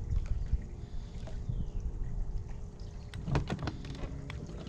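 Outdoor ambience on the water while fishing: a steady low rumble with a faint steady hum, and a short run of sharp clicks or knocks about three and a half seconds in.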